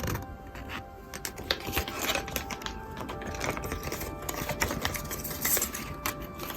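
Small plastic packets and pieces being handled and opened: a run of light, irregular clicks and crinkles.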